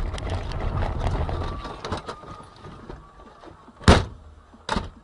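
Vehicle and road rumble with crackling that dies away over the first three seconds, then two loud thumps almost a second apart near the end.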